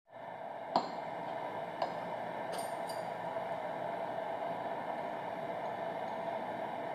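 Metal spoon and chopsticks clinking lightly against ceramic bowls, four short clinks in the first three seconds, over a steady background hiss.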